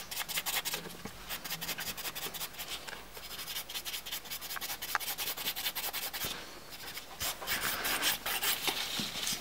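A hand nail file rubbing back and forth over a gel nail in quick, dense strokes, with a brief pause about six seconds in.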